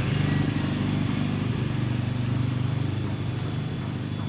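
A motor vehicle's engine running steadily and slowly fading as it moves away.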